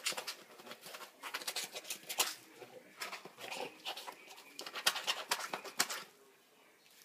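A dog makes short, irregular clicking and scuffling noises that stop about six seconds in.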